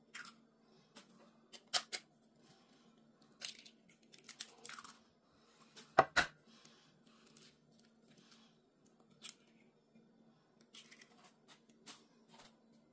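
Raw eggshells cracked and pulled apart over a glass bowl: a series of short sharp cracks and crackles, with one heavier knock about six seconds in.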